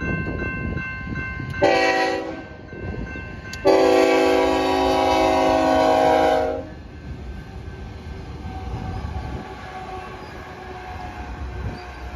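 A grade-crossing bell dings rapidly, then a BNSF diesel locomotive's multi-chime air horn gives a short blast about two seconds in and a long blast of about three seconds. After the horn stops, the locomotive and double-stack container cars rumble past.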